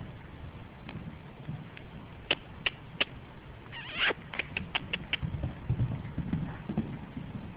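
Hoofbeats of a horse running loose in soft arena footing, low uneven thuds. A scattering of sharp clicks runs through them, thickest about four to five seconds in.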